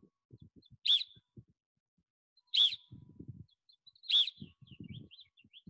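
Plastic coach's whistle blown in three short, sharp tweets about a second and a half apart, each one the signal to snap the lacrosse stick through another twist in the drill.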